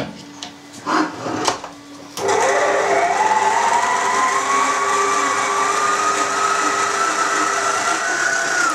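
FIRST planetary stand mixer kneading meat forcemeat with pork fat. After a few knocks, its motor starts about two seconds in with a loud whine that slowly climbs in pitch, then winds down with a falling whine near the end.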